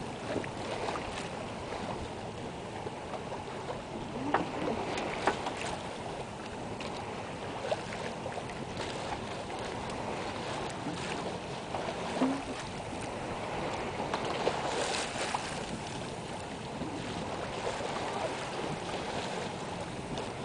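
Steady rush of water and wind aboard a sailboat under way, with a few light knocks and clicks.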